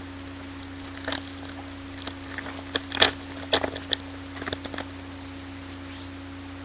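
Trading cards being handled and sorted: a scatter of light clicks and rustles, loudest about three seconds in, over a steady low electrical hum.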